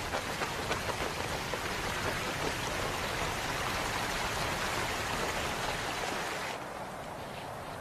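Water rushing and splashing, a dense steady hiss with a patter of drops, which thins out about six and a half seconds in.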